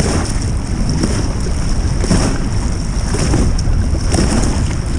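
Hand-paddling a plastic fishing board through choppy water: a splash with each arm stroke, about once a second, over heavy wind rumble on the microphone.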